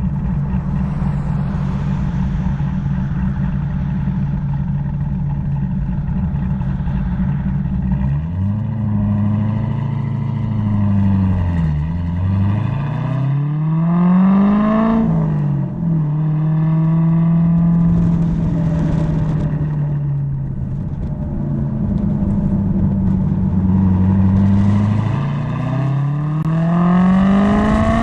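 Car engine and exhaust in a tunnel: a steady engine note for about eight seconds, then revs rising and falling, a climb in pitch cut by a brief drop around the middle that sounds like a gear change, a steadier stretch, and the revs climbing again near the end.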